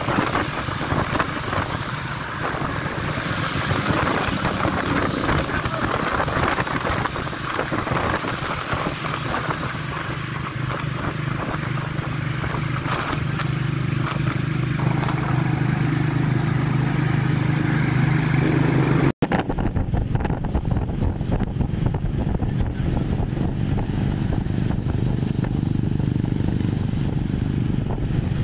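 Motorcycle engines running at steady cruising speed, mixed with wind and road noise. About two-thirds of the way through the sound cuts off suddenly and resumes duller, with less hiss.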